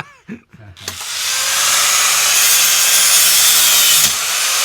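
Angle grinder cutting metal, starting up about a second in and running steadily as a loud hiss, with a brief dip near the end.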